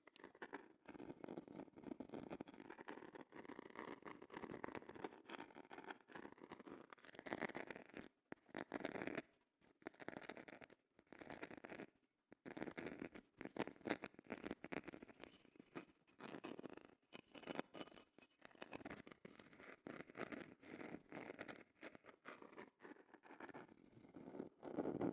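A seashell scratched close to the microphone: a dense run of fine crackling scratches, broken by a few short pauses midway.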